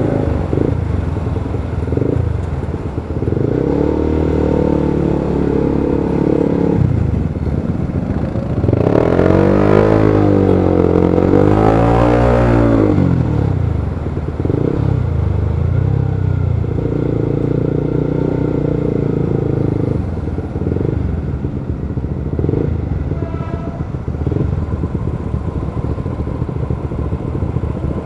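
Motorcycle engine running at low speed in a traffic jam, its pitch rising and then falling again about ten seconds in, with steadier stretches either side.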